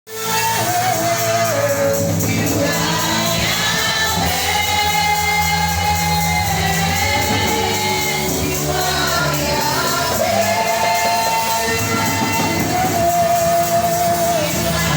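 Gospel music: singing over steady instrumental backing, playing continuously.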